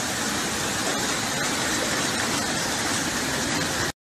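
Muddy flash-flood water rushing, a steady dense rush of noise that cuts off abruptly near the end.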